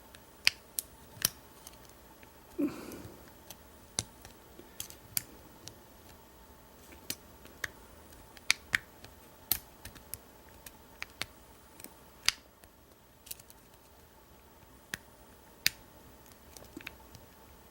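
Lock pick and tension bar clicking irregularly against the pins and keyway of an American 1305 padlock, which sits in a false set. A short, duller handling sound comes about three seconds in.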